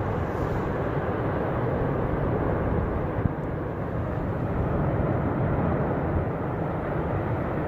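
A steady, low rushing roar that holds an even level throughout, with no separate knocks or pitched tones.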